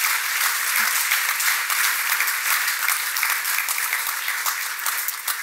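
Audience of seated dinner guests applauding: many hands clapping in a dense patter that thins out near the end.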